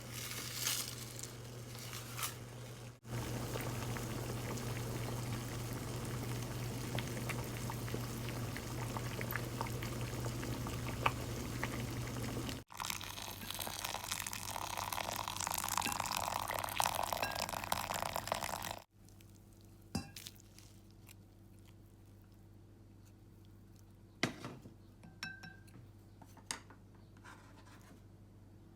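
Kitchen cooking sounds in several short cuts: liquid pouring and being stirred, a steady rushing over a low hum, then a quieter stretch of a few light clicks and knocks.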